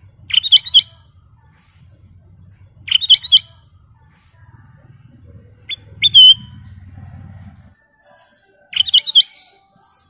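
Ruby-throated bulbul (kutilang emas) singing four short, bright phrases of quick whistled notes, about three seconds apart.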